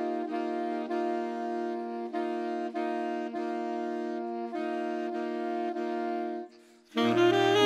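Saxophone ensemble playing sustained chords in its upper and middle voices, moving from chord to chord. About six and a half seconds in it breaks off briefly, then the full ensemble comes back in louder, with baritone and bass saxophones adding low notes.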